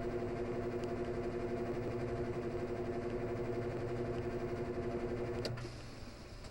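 Washing machine drain pump running with a steady motor hum, then cutting off with a click about five and a half seconds in.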